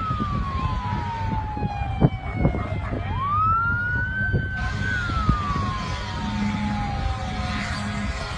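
Emergency vehicle siren wailing, rising quickly, holding, then falling slowly, about once every five seconds, over a steady low rumble, with a sharp knock about two seconds in.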